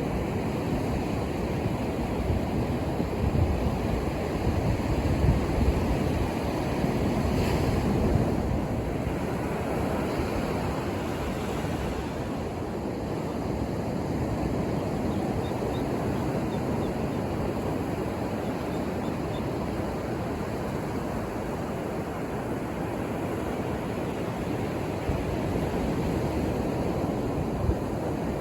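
Ocean surf breaking and washing up on a sandy beach, a continuous rush that swells a little in the first several seconds, with low wind rumble on the microphone.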